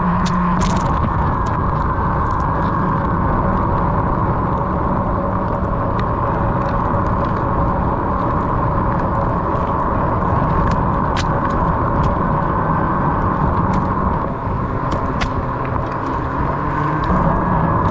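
Onewheel XR electric board in motion: the hub motor gives a steady whine that drifts slightly up and down in pitch, over a low rumble from the ride, with scattered sharp ticks.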